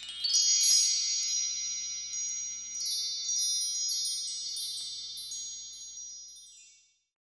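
Chime sound effect: many high bell-like tones ringing over one another, with fresh bright strikes every second or so. It is loudest near the start, slowly fades, and dies out shortly before the end.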